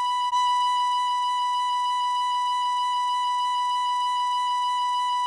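Tin whistle playing a single long B note, broken off and tongued again about a third of a second in, then held steady.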